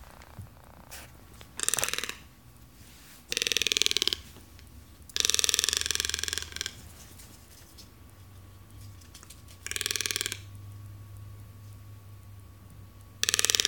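Toco toucan giving five rasping, rattling croaks, each a buzzy run of rapid pulses lasting from half a second to about a second and a half.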